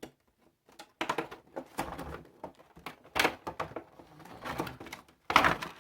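Pry drivers and their packaging being handled: a run of clicks and clatter starting about a second in, with two louder knocks, one about three seconds in and one near the end.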